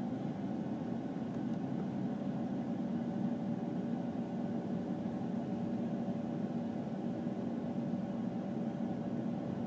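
John Deere S670 combine's engine running at full throttle, heard from inside the cab as a steady low hum with a faint steady tone above it.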